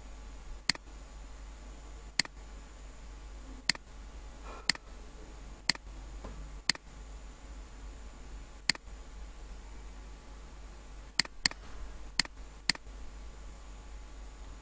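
Computer mouse clicking: about eleven single sharp clicks at irregular intervals, two of them in quick succession about two-thirds of the way in, over a steady low electrical hum and hiss.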